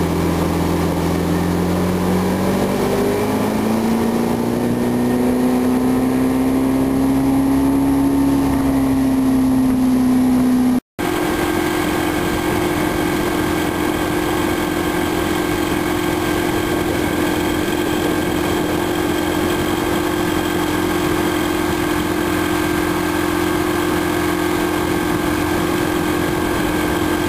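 Evinrude outboard motor running a fishing boat at speed; its note rises a few seconds in as it is throttled up, then holds steady. The sound breaks off for an instant about eleven seconds in and picks up again at a steady, slightly higher pitch.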